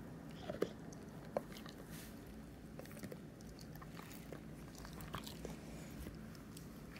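Dog licking and smacking its lips close up: a string of small wet clicks, the two loudest about half a second and a second and a half in.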